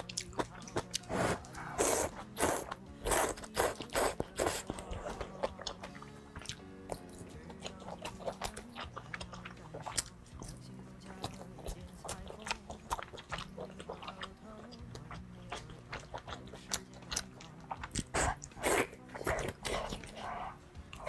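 Close-miked eating: a person biting and chewing noodles and a grilled sausage, with many wet mouth clicks and crunchy bites, busiest near the start and near the end. Soft background music with steady low notes runs underneath.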